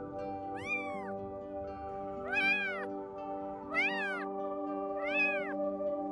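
Small kitten meowing repeatedly, about four high, arching calls roughly a second and a half apart, over steady background music.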